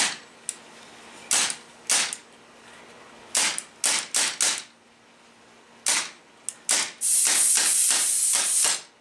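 CO2-powered paintball gun firing: single sharp shots spaced half a second to a second and a half apart, then a fast burst of shots for about the last two seconds.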